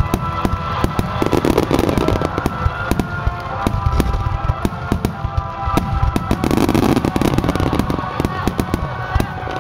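Aerial fireworks display: a continuous volley of booms and dense crackling bursts, with music playing alongside.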